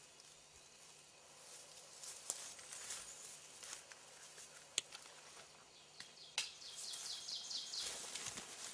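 Faint forest ambience with a few sharp clicks and rustles as gear is handled, and a bird trilling a quick run of falling high notes about six and a half seconds in.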